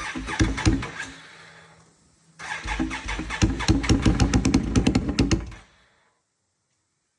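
Can-Am Outlander 850 XMR's V-twin engine cranking and sputtering with rapid, uneven pops, catching briefly at the start, then again for about three seconds before it stops. It is clearing itself out after being swamped with water.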